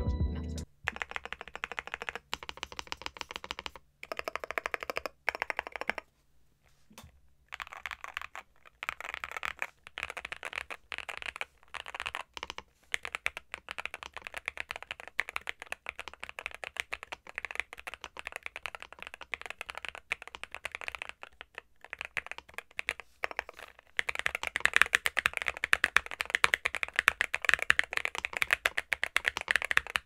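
Typing on a NuPhy Gem80 mechanical keyboard fitted with stock Gateron x NuPhy Raspberry linear switches, an aluminum plate and a silicone strip. A fast, continuous run of keystrokes with a few short pauses, louder from about three-quarters of the way through.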